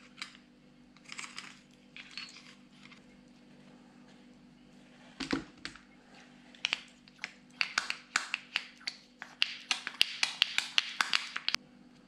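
Metal tool scraping and clicking against the planetary reduction-gear housing of a diesel starter motor as it is cleaned out. There are a few soft scrapes at first, a dull knock about five seconds in, then a quick run of sharp metallic clicks through the second half.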